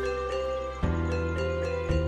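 Background instrumental music: a melody of short notes over sustained bass notes that change about once a second.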